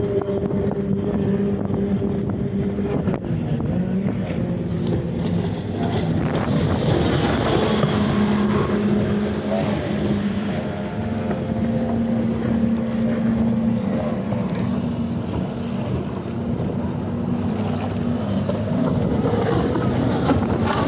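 Outboard-powered race boats running flat out on the water: a steady engine drone whose pitch shifts a few times as boats pass, with wind buffeting the microphone.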